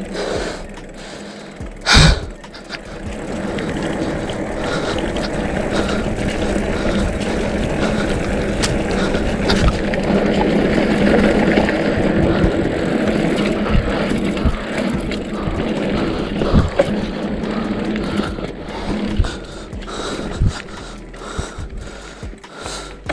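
Mountain bike rolling fast down a dirt trail: a steady rush of tyre and wind noise that grows louder from about four seconds in, with a sharp knock about two seconds in and smaller knocks as the bike bumps over the ground.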